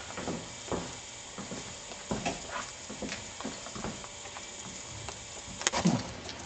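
Steady hiss with irregular soft footsteps and handling knocks from someone walking through a bare, unfinished house. A louder knock with a low thud comes near the end.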